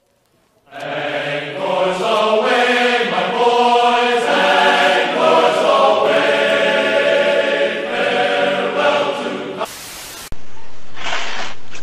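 Choral singing: a chant of held notes that step from pitch to pitch. It starts just under a second in and breaks off into a short burst of hiss near the end.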